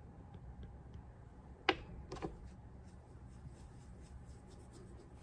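Quiet handling sounds of shoe polishing: a damp cotton flannel cloth dabbed into a tin of wax, with two sharp clicks about two seconds in, then faint repeated rubbing as the cloth works the wax into the leather toe in small circles.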